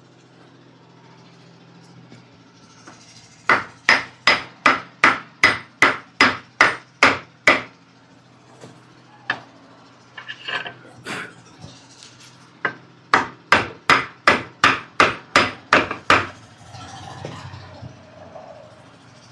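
Hammer striking a block of wood held against an AC compressor pulley, driving the pulley onto the compressor shaft. There are two quick runs of about a dozen blows, roughly three a second, with a few single knocks between them.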